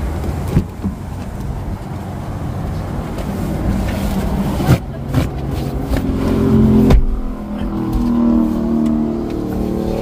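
A car's engine running as the car drives off, with low road rumble. The engine sound builds for a few seconds, then drops suddenly about seven seconds in, with a few short knocks along the way.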